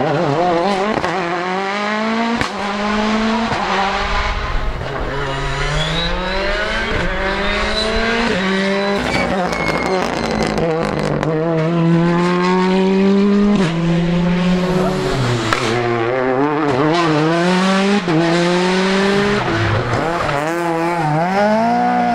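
Several rally cars one after another, each engine revving hard and changing up through the gears as it drives past, with tyre squeal at times. The engine sound cuts abruptly from one car to the next several times.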